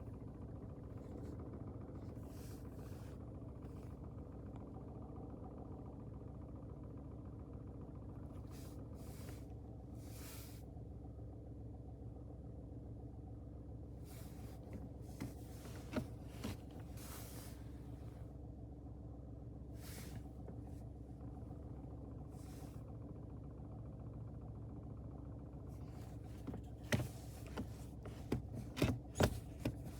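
Ford Focus Mk4 1.0 EcoBoost three-cylinder engine idling with a steady low drone, recorded for a rattle that the owner is checking as a possible dual-mass flywheel fault. Several sharp clicks come in the last few seconds.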